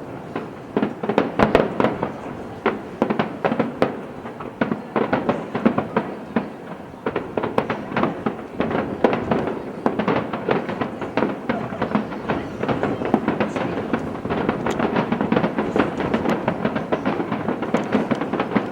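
Aerial fireworks finale barrage: a rapid, continuous string of bursts and crackles, several a second, with no let-up.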